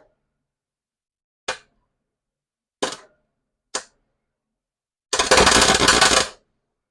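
MIG (wire-feed) welder tacking steel: three brief arc strikes, then a crackling weld of about a second and a half near the end. The wire speed is set high for the heat the welder is giving.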